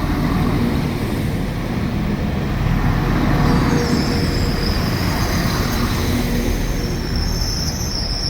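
Five-car passenger train arriving at a station platform, a steady low rumble of wheels and engines, joined about halfway through by a thin high brake squeal as it slows to a stop.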